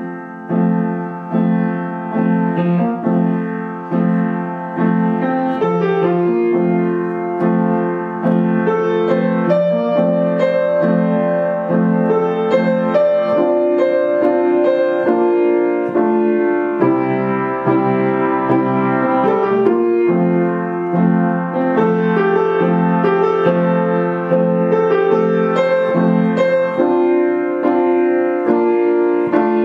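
Background music led by piano, with steady repeated chords.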